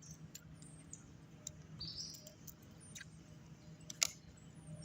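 Faint bird chirps in the background, with a single sharp click about four seconds in.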